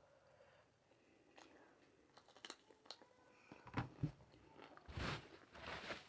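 Close-miked eating sounds: chewing and biting with sharp wet mouth clicks. Almost nothing in the first second and a half, then louder bursts of chewing in the second half.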